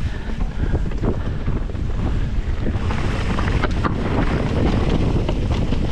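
Wind buffeting the microphone as a mountain bike descends a rocky singletrack, with the tyres rolling over stones and irregular clatter and knocks from the bike over the rough ground.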